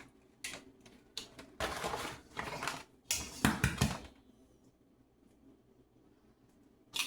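Raw eggs being cracked against a bowl: a series of sharp taps and short crunching shell breaks over the first four seconds, then a pause and one more tap near the end.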